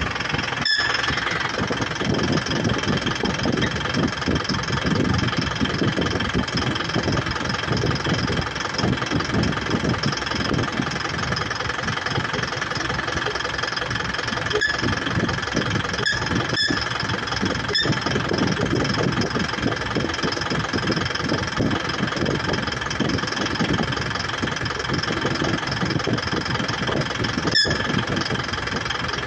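Isuzu NPR truck engine idling steadily, with a steady high whine over it; the truck's air-conditioning compressor is faulty.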